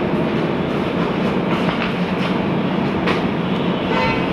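Steady, loud rushing noise with a low hum underneath, a few faint clicks, and a brief pitched squeak near the end.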